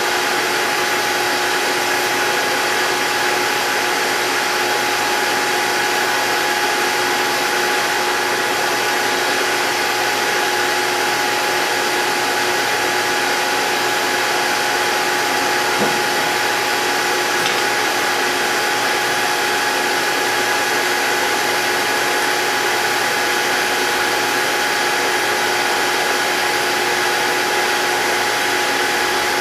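Hydraulic tube bender's pump running steadily with a constant whine as the 10-ton cylinder slowly bends 6061-T6511 aluminum tube that has not been annealed, with one faint click about halfway through.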